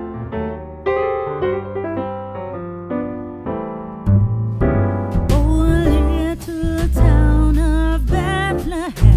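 Background music: electric piano chords at first, joined about four seconds in by a heavier bass and beat, with a sung melody coming in just after.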